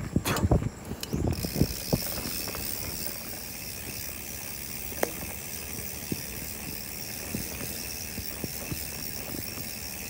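Trek Super Marlin 5 mountain bike's rear freehub ratchet buzzing steadily while the bike coasts over a dirt trail. A few knocks from the bike jolting over bumps come in the first two seconds, with small rattles after.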